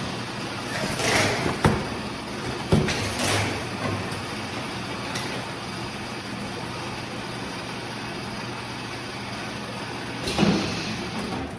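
Stainless-steel bottle-filling machine running with a steady hum and rush as gorosoe (mono maple) sap fills plastic bottles. There are a couple of sharp knocks early on and short hissing surges, the loudest near the end.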